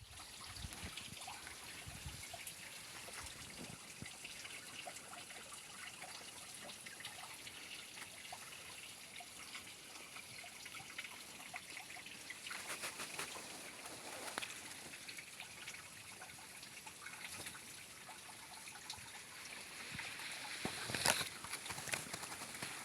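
Waterfall trickling and splashing: a steady hiss of falling water dotted with many small drips and splashes, with a few louder splashes near the end.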